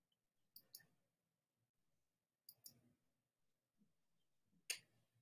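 Faint computer mouse clicks in near silence: a quick double click about half a second in, another about two and a half seconds in, and a single louder click near the end.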